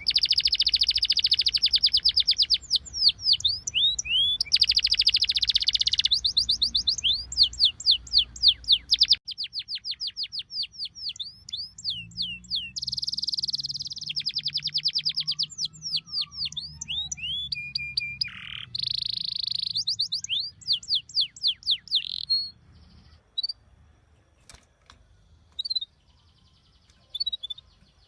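Songbirds singing: fast runs of high, sharp down-slurred chirps and trills, many notes a second. Near the end they thin out to a few scattered chirps.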